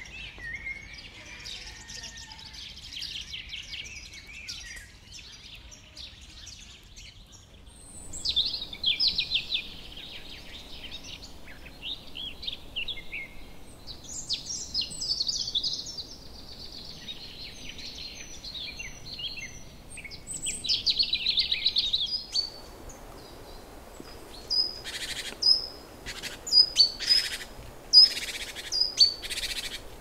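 A chorus of several wild birds chirping and trilling in bright, high-pitched phrases that come in louder bouts. About two-thirds of the way through the soundscape changes to a series of sharp, loud, clipped calls repeated every half second or so.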